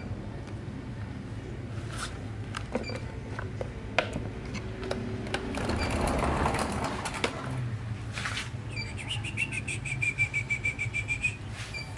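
Steady low background hum with scattered light clicks, and near the end a rapid trill of chirps, about ten a second, lasting some two and a half seconds.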